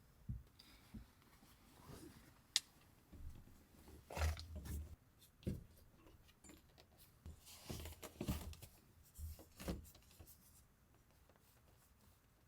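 Small handling noises in a small room: irregular soft knocks, rustles and clicks, with one sharp click about two and a half seconds in.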